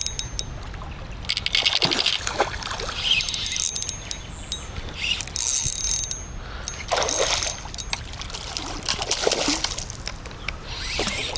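Hooked fish splashing and thrashing at the surface of the water in several short bursts while it is being reeled in.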